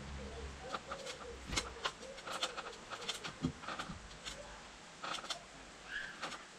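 A pigeon cooing in the background, with irregular sharp knocks and taps of wooden battens being handled against a timber shed frame.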